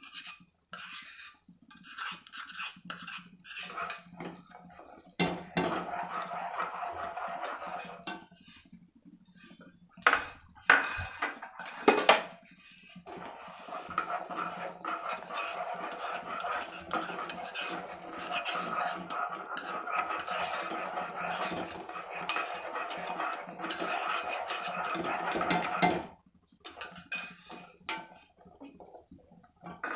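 A spoon scraping and tapping roasted sesame seeds out of a small pan into a pot, then a ladle stirring lotus seeds (makhana) in jaggery syrup, scraping and knocking against the pot. A few sharp knocks come about ten to twelve seconds in, and the stirring runs thick from about a quarter of the way in until shortly before the end.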